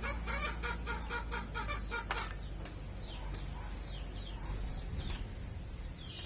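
A chicken clucking in a quick run of short pitched clucks for about two seconds, then a few short, falling bird chirps, over a steady low hum.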